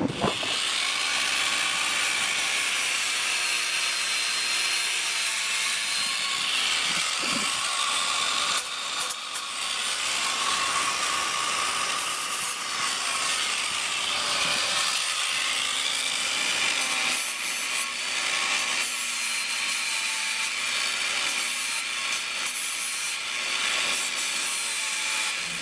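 Cordless angle grinder running with its disc pressed against steel: a continuous grinding hiss with a high motor whine that wavers as the pressure changes, dipping briefly a few times. This is the broken bracket piece being ground ready for re-welding onto the bar.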